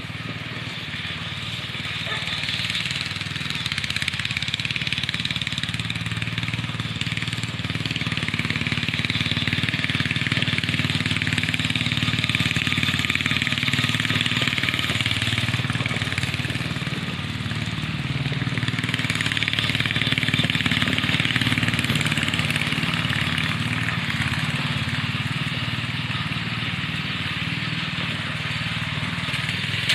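Small riding mower's 12 hp Briggs & Stratton engine running steadily as the mower is driven over rough dirt, growing louder and easing off as it moves nearer and farther.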